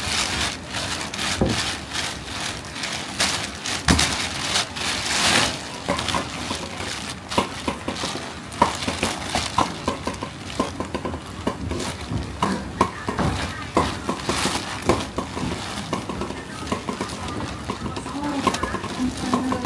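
Kitchen clatter: scattered knocks and clinks of dishes and utensils over a noisy background.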